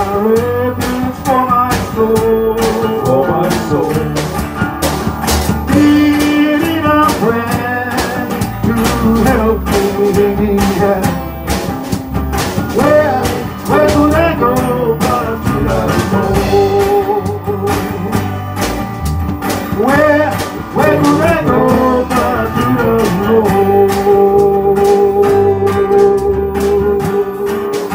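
Live church music: an acoustic guitar and a held, gliding melody line over a steady beat.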